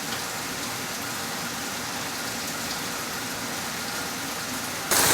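Steady rush of heavy storm rain, jumping suddenly louder near the end.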